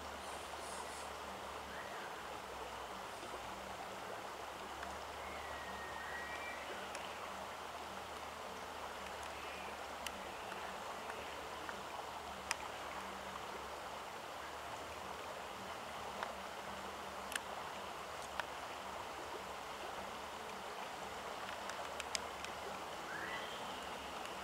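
Steady rushing outdoor ambience, an even hiss like running water, with a few faint bird chirps and occasional small clicks.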